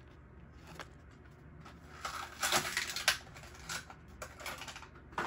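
Plastic blister packaging on a Matchbox diecast card crackling and clicking as it is pried open: a run of scattered clicks and crinkles, busiest about two to three seconds in.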